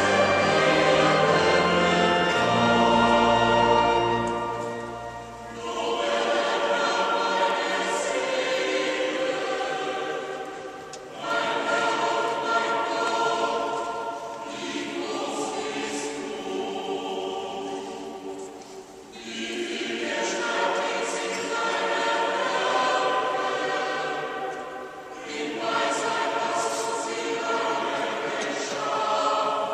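Choir singing in long sung phrases, with short breaks between phrases about every five to eight seconds; low sustained notes underneath stop about five seconds in.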